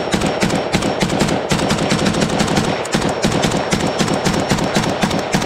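AK-pattern rifle firing a rapid string of shots in close succession.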